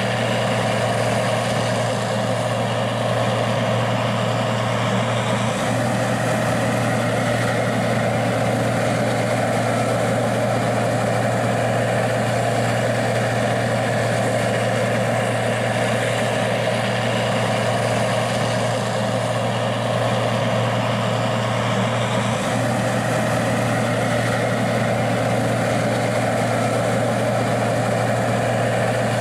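Gleaner R60 combine's diesel engine running steadily at a constant speed, a low even drone that does not change.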